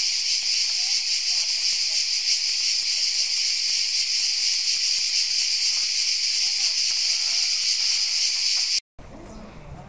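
A loud, steady chorus of cicadas chirring, a dense high-pitched buzz with a fast pulse, cut off suddenly near the end.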